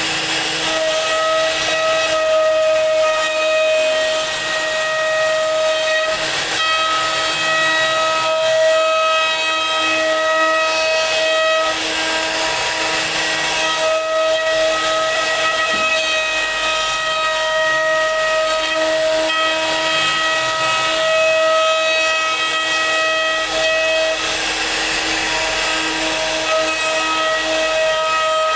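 CNC router spindle whining steadily as its bit carves a relief pattern into a wooden board, with a constant hiss of cutting underneath. The whine breaks off briefly several times as the cut changes.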